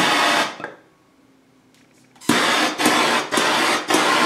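Hand-held trigger-start MAPP gas torch hissing as its flame is switched on and off: one burst that ends about half a second in, then after a pause a run of several short bursts lasting about two seconds. The torch is being passed over wet epoxy resin to pop bubbles.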